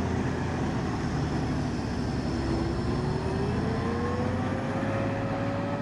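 Massey Ferguson farm tractor's diesel engine running hard under load while pulling a weight-transfer sled. A whine climbs in pitch from about two seconds in and then holds high.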